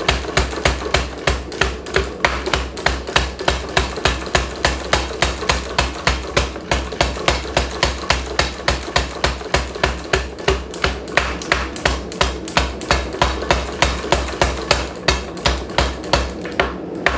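Steady hammer blows on a hot steel bar at the anvil, about three to four strikes a second, as the end of the bar is forged down into a taper for a scroll.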